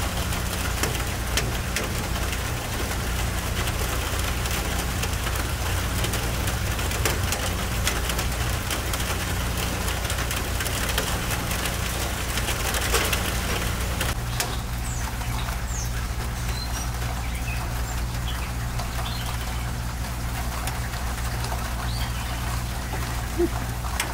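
Steady rain with a dense patter of drops over a continuous low rumble. From about midway, a few short, high bird chirps sound over the rain.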